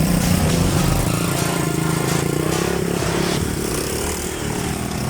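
ATV (quad bike) engine running during an off-road ride, its pitch rising and falling slightly in the middle.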